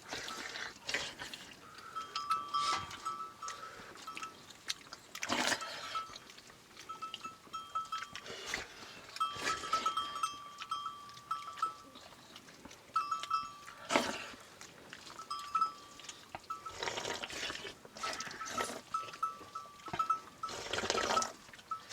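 Small bells on a flock of sheep tinkling on and off, with a few louder sheep bleats among them.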